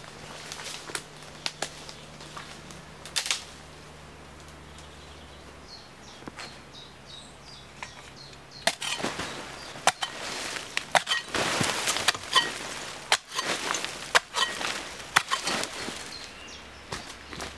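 Dry twigs and leaves crackling and snapping underfoot, a dense run of sharp cracks through the second half, with faint bird chirps in the quieter first half.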